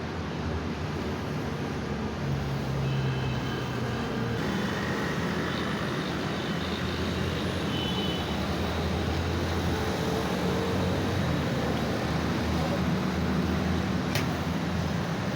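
Road traffic running past: steady engine and tyre noise from passing motor vehicles, with engine hum shifting as they go by and a single sharp click near the end.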